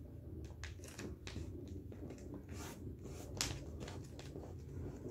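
A sheet of printer paper being folded and creased flat by hand into a paper airplane: scattered short rustles and crinkles over a low, steady background hum.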